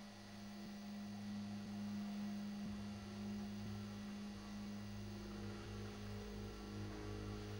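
A low steady drone of ambient music fading in over the first couple of seconds and then holding, with faint higher tones joining about halfway through.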